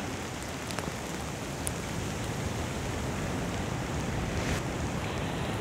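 Steady noise of wind and rain, with wind buffeting the microphone.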